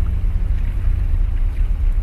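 Wind buffeting the microphone as a steady low rumble, with sea water washing faintly around concrete breakwater blocks.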